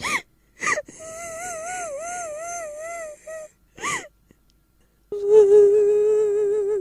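Horror sound effect of an eerie, high-pitched ghostly voice: short sharp cries that swoop up and down, a long wavering wail, then a steadier held wail from about five seconds in.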